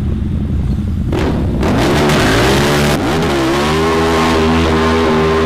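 Motorcycle engine idling, then revved twice, the pitch climbing each time and held high before it falls away near the end.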